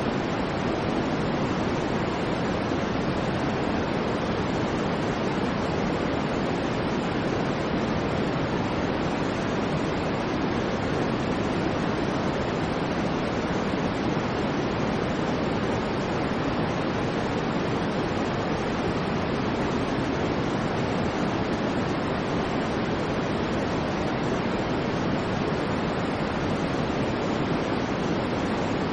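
Steady, unchanging white noise for sleep, a constant hiss that is fuller in the low and middle range than in the highs.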